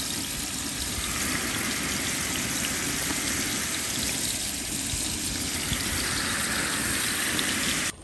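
Raw ground venison sizzling in hot olive oil in a large metal pot as it starts to brown: a steady, loud hiss that cuts off suddenly near the end.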